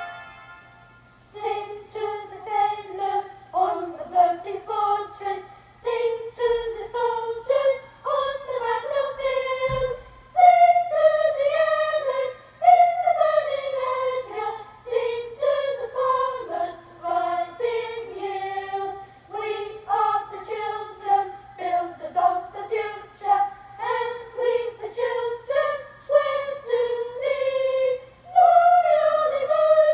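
A choir singing without accompaniment, a single sung melody in short phrases. It begins about a second in after a brief quiet.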